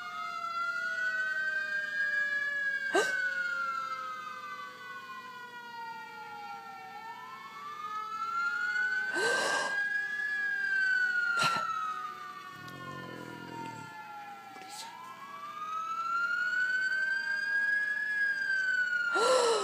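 A siren wailing, its pitch slowly rising and then falling in long cycles about eight seconds apart, with a few short sharp knocks in between.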